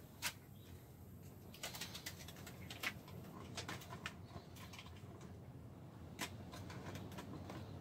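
Aluminium foil tape crinkling as it is pressed and smoothed down by hand onto the sheet-metal edge of an RV air-conditioner ceiling opening: a scattering of faint, sharp crackles and clicks.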